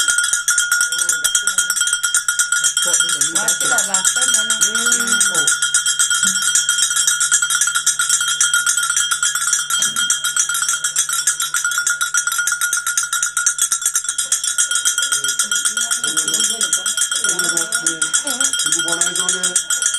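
A metal bell rung rapidly and without pause, a steady high ringing made of very fast strokes. Low voices can be heard underneath at the start and again near the end.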